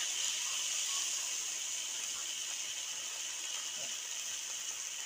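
Water poured from a jug into a hot kazan of fried meat, carrots and onions: the hot oil hisses and steams steadily as the water boils up, easing slightly toward the end.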